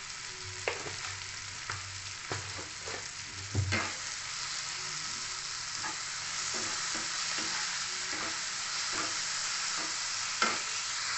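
Chopped onion and tomato sizzling in hot oil in a kadhai while being stirred with a wooden spatula. The spatula knocks and scrapes against the pan at irregular moments, with the loudest knocks about a third of the way in and near the end.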